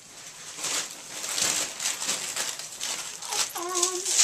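Wrapping paper rustling and crinkling as presents are unwrapped, in a run of crisp strokes. A little before the end comes a short wavering whine.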